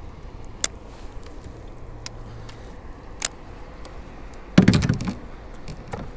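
A few sharp single clicks, then a loud hollow knocking clatter about four and a half seconds in, from gear knocking against a kayak.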